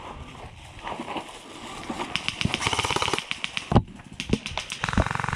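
Airsoft electric guns firing on full auto: a rapid, even string of shots lasting about a second, starting about two seconds in, and another burst near the end. A single sharp knock falls between the bursts.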